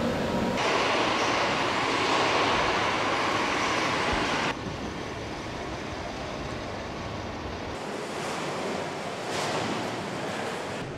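Steady, noisy machinery hum on a truck assembly floor, with no clear tone or beat. It changes abruptly twice: it grows louder and brighter about half a second in, then drops to a duller, quieter hum at about four and a half seconds.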